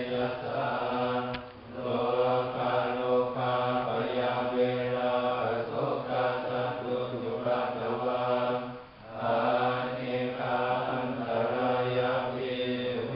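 Group of Buddhist monks chanting Pali in unison, a steady recitation on a narrow range of pitch. It pauses briefly for breath about two seconds in and again about nine seconds in.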